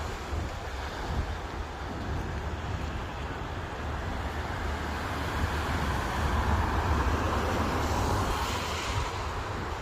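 Sea surf washing in, with wind rumbling on the microphone. The wash swells louder about six seconds in, then eases off.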